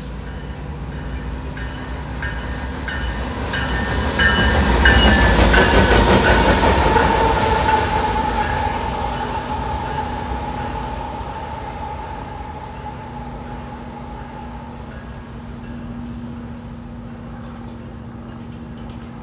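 BNSF diesel freight locomotives running light (a powermove with no cars) passing close by. The rumble builds to its loudest about five seconds in, then fades as they move away, leaving a high whine that drops slightly in pitch.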